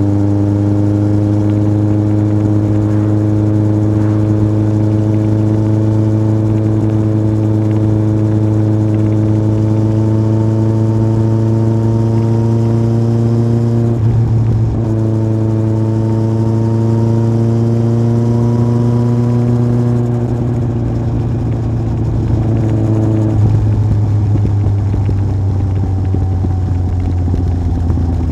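Yamaha Fazer 1000's inline-four engine running through a MIVV aftermarket exhaust while riding: the note climbs slowly, breaks briefly about halfway through, climbs again, then eases and drops in pitch about three quarters of the way through.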